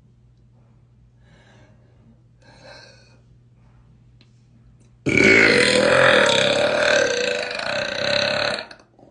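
A person burping: one long, loud belch of about three and a half seconds, starting about halfway through, held at a fairly steady low pitch.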